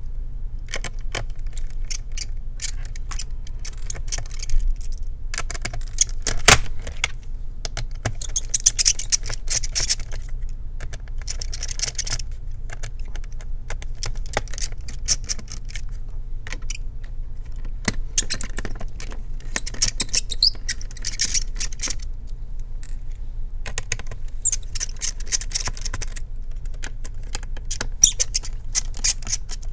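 A small screwdriver working at the screws of a laptop's base: scattered clicks and short scratchy metal-on-plastic scrapes and light rattles, over a steady low hum.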